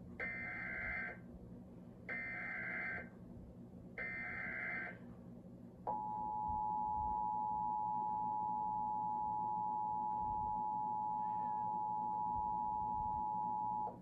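Emergency Alert System test broadcast heard from a TV's speakers: three one-second bursts of buzzing SAME header data tones about two seconds apart, then the steady two-tone EAS attention signal (853 and 960 Hz) held for about eight seconds and cut off sharply. The tones open a required monthly test of the alert system.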